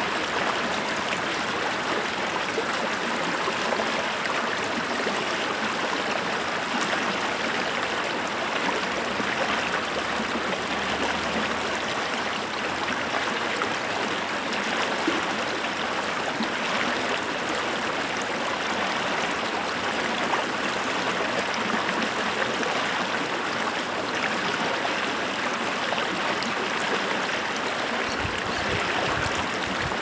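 Shallow rocky stream rushing over a small cascade between boulders: a steady, even rush and splash of flowing water.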